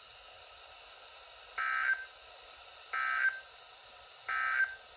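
Three short buzzing digital data bursts, evenly spaced about a second and a half apart, from a Midland NOAA weather radio's speaker. They are the SAME end-of-message code that closes a severe thunderstorm warning broadcast.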